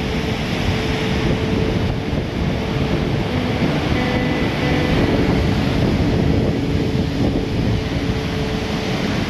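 Strong wind buffeting the microphone with a low rumble over rough, storm-driven surf breaking on a beach, steady throughout.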